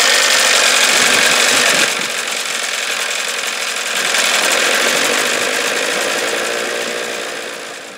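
1986 Johnson 15 hp two-stroke outboard motor running in a test barrel on its first run after sitting unused for a couple of years. It is loud and steady, drops in level about two seconds in, rises again about four seconds in, and fades out near the end.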